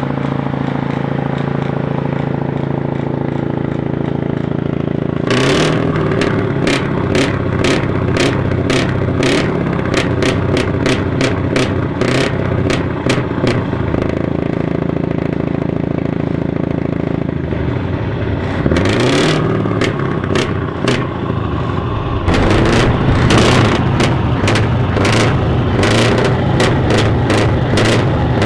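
Scania 164 T480's V8 diesel engine, loud through triple chrome side exhaust pipes. It idles steadily at first, then from about five seconds in it is revved, with a rapid series of sharp cracks from the exhaust. The revs rise and fall again about two-thirds of the way through, and it runs louder over the last six seconds.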